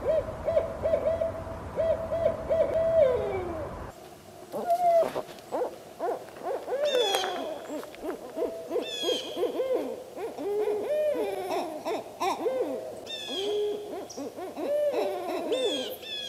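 Owls hooting. A quick series of short, even hoots ends in a note that falls in pitch. After a cut about four seconds in, several owls call over one another with hoots and downward-sliding calls.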